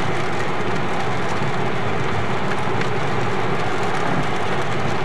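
Steady drone inside a moving car's cabin: engine and tyres running on a rain-soaked road.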